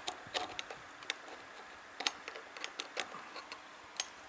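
Small parts of a Smith & Wesson M29 CO2 air revolver clicking and tapping against the frame as the hammer is fitted back in by hand: about a dozen light, irregular clicks.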